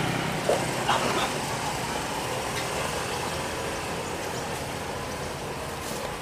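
Steady rumble and hiss of road traffic, with a brief voice sound about a second in.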